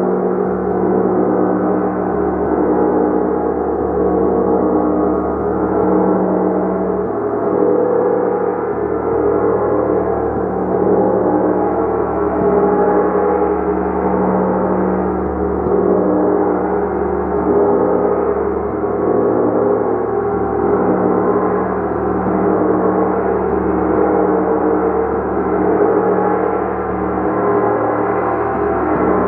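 Large gong played continuously in a sound bath: a dense, sustained wash of overlapping tones that swells and ebbs slowly, with no single strike standing out.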